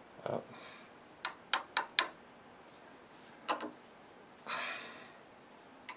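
Metal hand tools clinking as they are handled: a soft knock, then four sharp clinks in quick succession about a second in, another clink, and a brief scrape near the end.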